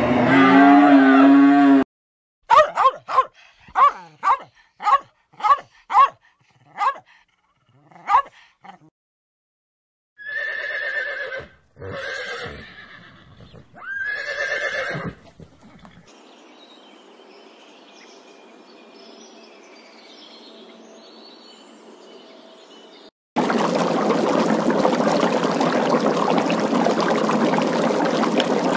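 A cow's moo ends at the start. Then zebras call: a quick run of about a dozen short barks, roughly two a second, followed by three longer braying calls. Near the end comes a loud, steady rush of splashing water.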